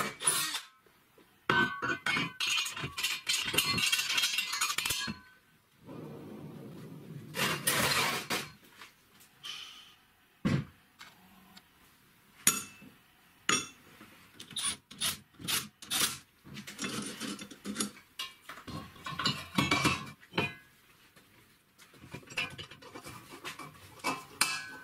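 Electric drill boring into steel square tubing for a few seconds, followed by scattered metallic clinks and knocks as metal parts and tools are handled on a workbench.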